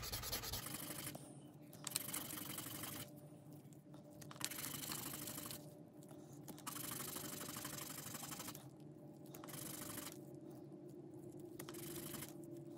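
Resin die being wet-sanded on waterproof sandpaper to grind down the rough corner left by the sprue: faint gritty scraping in spells of a second or two as it is rubbed back and forth, with short pauses between.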